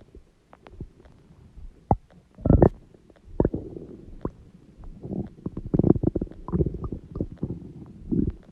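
Human stomach growling and gurgling: irregular low rumbles broken by short pops and clicks, loudest about two and a half seconds in and again around six seconds.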